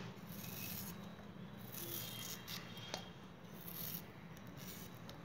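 Knife slicing through raw purple yam held in the hand: about four short scraping strokes, with a faint steady low hum underneath.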